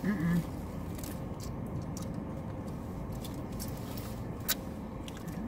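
Quiet eating sounds in a car cabin: chewing, finger-licking and lip smacks with small rustles of food wrapper and sauce packet, over a steady low hum. A short murmured voice comes at the very start, and a sharp click about four and a half seconds in.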